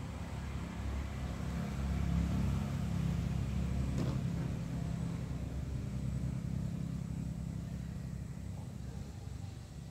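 Low engine rumble that swells about two seconds in and then slowly fades, with one sharp click about four seconds in.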